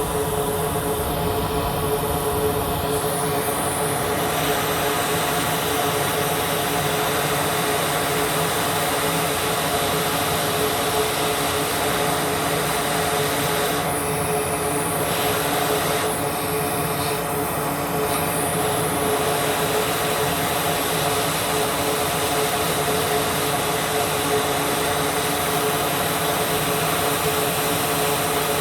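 Hakko FR-810 hot air rework station blowing steadily: an even rushing hiss over a steady hum, while it heats the solder under a USB-C connector on a laptop motherboard. The hiss thins briefly about halfway through.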